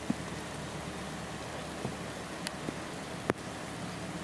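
Steady rainfall with a few sharp drops striking close by, the loudest about three seconds in.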